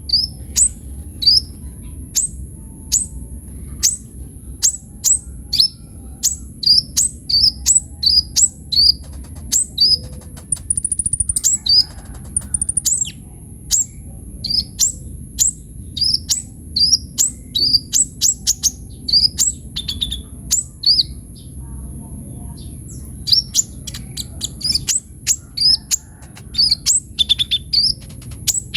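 Kolibri ninja sunbird singing hard and without a break: a long stream of sharp, high chirps that drop in pitch, about two a second, with a short high trill about eleven seconds in. A steady high whine runs underneath.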